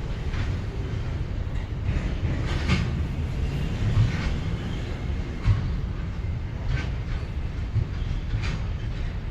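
Container freight train wagons rolling past on steel wheels: a steady low rumble with sharp knocks about once a second as the wheels cross rail joints.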